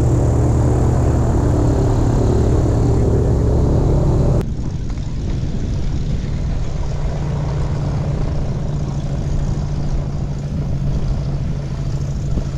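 Airboat's engine and aircraft-type propeller running steadily at speed. About four seconds in, the sound drops abruptly to a lower, duller level and then runs on steadily.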